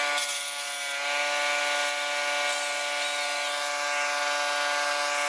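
Small engine of tree-removal power equipment running at a steady, unchanging speed.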